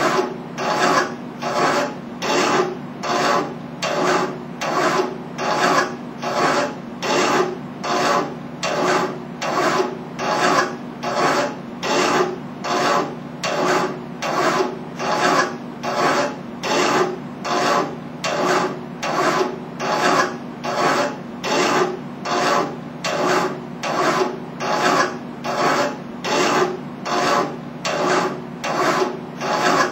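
Hand file rasping across a metal workpiece clamped in a bench vise, in steady, even strokes a little over one a second.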